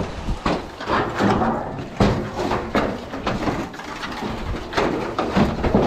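Sheets of tin being lifted and shifted off a stack, with irregular metallic scrapes and knocks.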